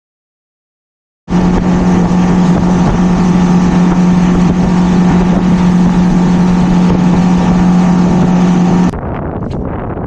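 Boat's outboard motor running at a steady pace with a constant hum, starting abruptly about a second in. Near the end it cuts to quieter wind noise on the microphone with a few clicks.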